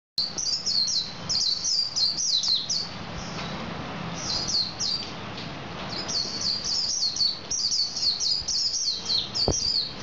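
Male white-eye (pleci) singing in full voice: rapid runs of high, twittering notes in three spells, with short pauses about three and five seconds in.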